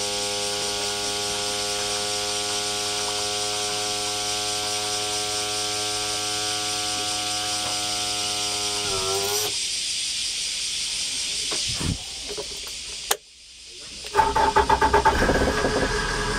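Yamaha 115 outboard motor running steadily with a hum and hiss, shutting down about nine and a half seconds in. After a click and a short quiet spell, the starter cranks in quick pulses and the engine catches and runs again.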